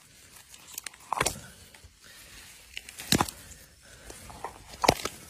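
A hand slapping and squelching into wet mud while digging at a burrow, with three loud wet slaps spaced about two seconds apart and smaller clicks between.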